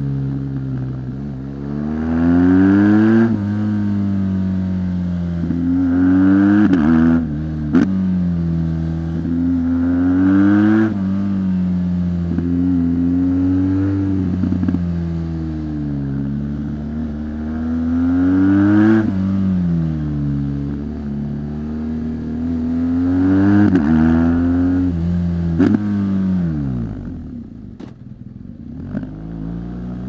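A 2017 BMW R1200 GS Rallye's boxer-twin engine through its stock exhaust, heard from onboard. It rises in pitch under acceleration and falls back again five or six times. Near the end the pitch and loudness drop steeply to a low note before the engine pulls again.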